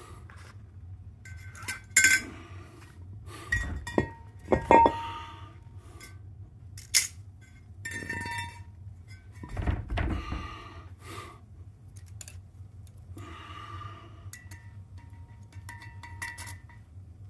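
Knocks, clinks and small clicks of metal being handled as brake rotors and a measuring caliper are worked, some knocks leaving a brief metallic ring, with a heavier thump about ten seconds in. A low steady hum runs underneath.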